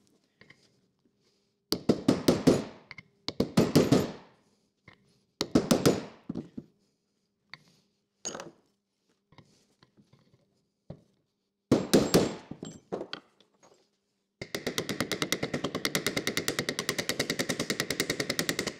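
Ball-pein hammer peening over the centre of a Maserati V8 sprung engine mount, metal on metal: several short bursts of blows. Over the last four seconds comes a fast, even run of light taps, about ten a second, with a ringing note.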